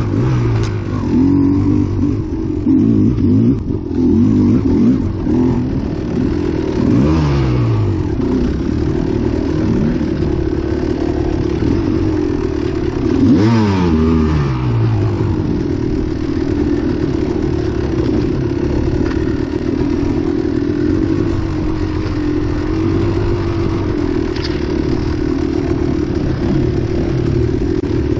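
Kawasaki KX250XC two-stroke dirt bike engine running under throttle and revving. The revs drop sharply twice, about seven and about thirteen seconds in, then hold fairly steady.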